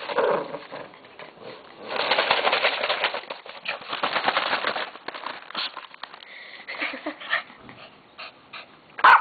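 A Lhasa Apso tearing and crumpling a newspaper: rough paper rustling, heaviest in the middle, with scattered crackles after it and one short loud sound near the end.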